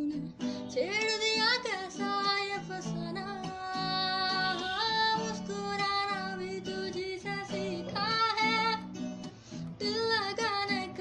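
Solo singing voice with a strummed acoustic guitar: the voice slides up into long held notes about a second in and carries on over steady strummed chords.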